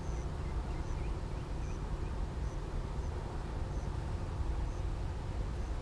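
Outdoor background sound: a steady low rumble, with a short high chirp repeating about once every second.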